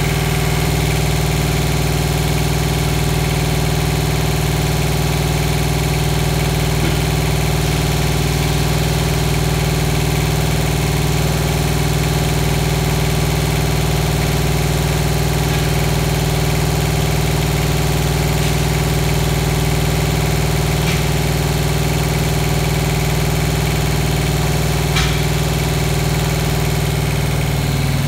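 Thermo King TriPac APU's small diesel engine idling steadily.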